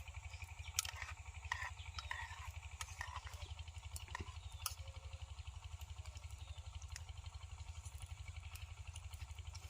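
A low engine hum pulsing fast and evenly, with scattered light clicks over it.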